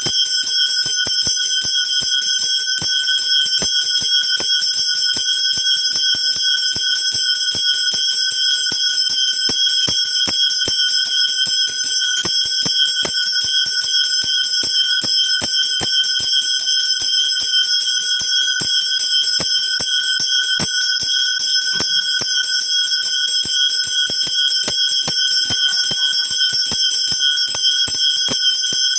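Brass temple hand bell (ghanta) rung continuously with fast, even strikes of the clapper, its high, steady ringing tones unbroken, as rung during a puja offering.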